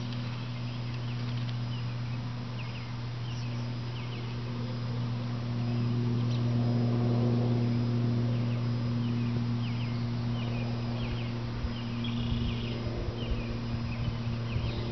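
A steady low hum with overtones, with short high chirps scattered over it and some low rumbling in the last few seconds.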